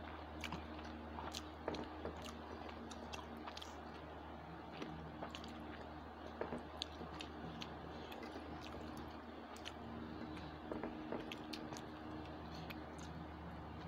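Close-miked eating sounds: chewing and many small wet clicks and smacks as rice and fried fish are eaten by hand, over a steady low hum.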